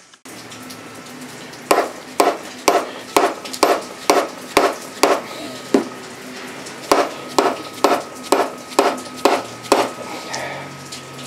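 Hand tool tapping on metal parts of a lathe carriage apron, in sharp even strikes about two a second: ten strikes, a pause of about a second, then seven more.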